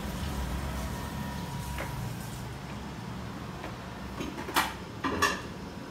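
A few sharp knocks and clatters at a kitchen sink, about four and a half and five seconds in, over a steady low hum of the room.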